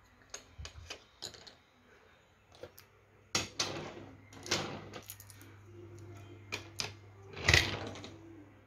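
Handling sounds: light clicks and taps as small plastic toy pieces are touched, with louder rubbing rustles about a third of the way in, near the middle, and near the end.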